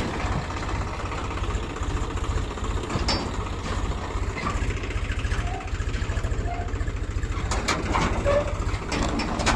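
A diesel engine of the backhoe or tractor idling steadily with an even low throb. A few sharp knocks or clanks stand out: one at the start, one about three seconds in, a couple around seven and a half seconds, and one at the end.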